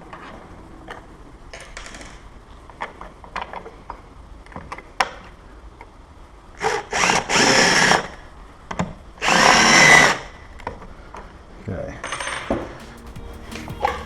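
Cordless drill driving a screw into wood without a pilot hole, run in two bursts about seven and nine seconds in, the first after a couple of short starts. Light clicks of tool and hardware handling before and after.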